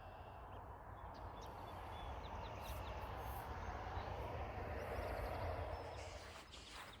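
Outdoor ambience in open grassland: a rushing noise swells for about five seconds and then fades away, over a low rumble of wind on the microphone. A few faint, short bird chirps come in the first half.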